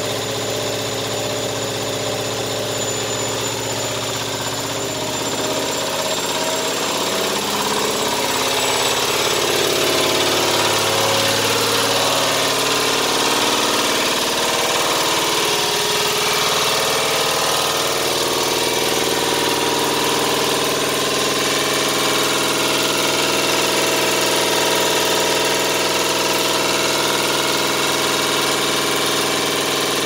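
Candy Smart washing machine spinning its drum during a 1400 rpm spin cycle: a steady motor whine over a rumble. The pitch shifts and it grows louder about eight seconds in, then holds steady.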